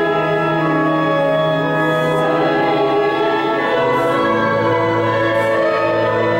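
Sacred church music: a choir singing slow, sustained chords with instrumental accompaniment, the notes held and changing every second or so.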